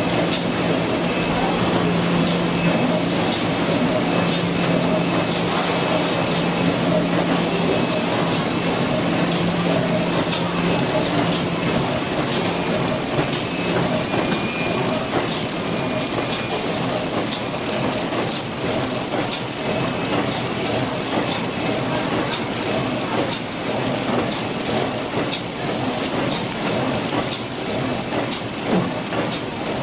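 Automatic hamburger packaging line running: conveyor and film-wrapping machine giving a steady mechanical clatter full of small rapid ticks. A steady low hum underneath stops about halfway through.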